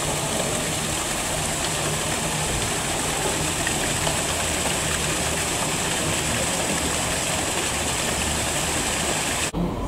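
Water spilling over a canal lock's upper gates and falling into the lock chamber, a steady rushing that cuts off suddenly near the end.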